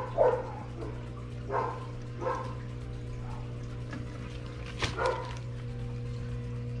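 A dog barking in short yips, about six times in three pairs, over a steady low electrical hum.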